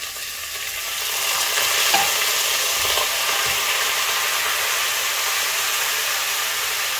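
Broccoli florets tipped into a hot Mauviel copper sauté pan with oil and garlic, sizzling loudly; the sizzle swells over the first second or two, then holds steady, with a few faint knocks about two and three seconds in. The pan is heaped with more broccoli than it comfortably holds.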